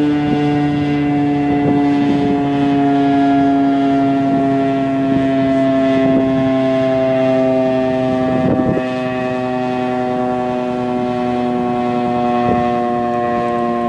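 Federal Signal RSH-10A Thunderbeam outdoor warning siren sounding its steady Alert tone, a loud sustained chord of several pitches that sags slightly lower over the seconds. Its reflector disc is turning inside the mesh housing.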